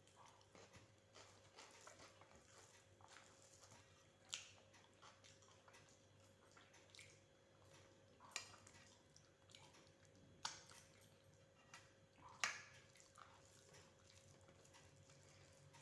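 Quiet eating sounds: faint chewing, with four short, sharp crunches or clicks spread over the last two-thirds.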